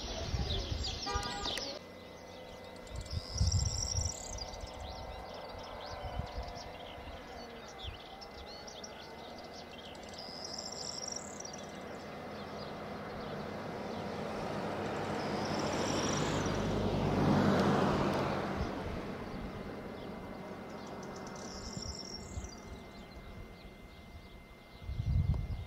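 Open-air countryside ambience: birds chirping, with a short high call repeating every six or seven seconds. A vehicle passes, its sound swelling and fading about two-thirds of the way through. There are a couple of low thumps, one near the start and one near the end.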